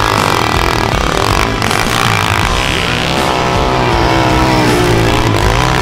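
190cc pit bike engine revving, its pitch rising and falling as the bike is ridden.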